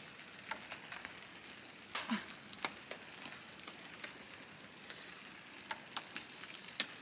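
Faint scattered ticks over a light crackle, with a short grunt-like voice sound about two seconds in.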